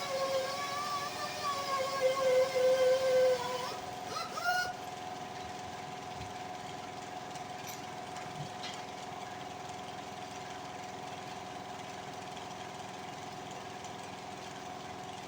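Workshop air compressor running steadily as it pumps up. Over the first four seconds or so a louder whine sits on top of it, sinks slightly in pitch and stops. After that only the compressor's even hum is left.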